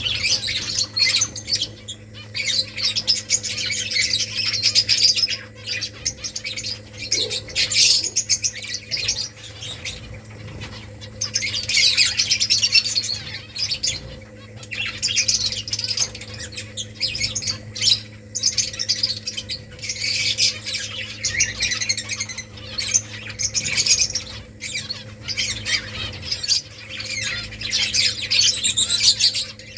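A colony of finches chirping and calling together, many rapid high chirps that swell into busy bursts every few seconds, over a steady low hum.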